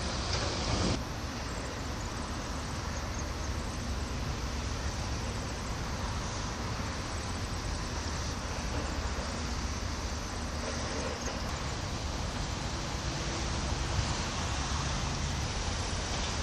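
Steady outdoor rumble with a hiss on top: wind on the microphone over the distant noise of road traffic and port machinery.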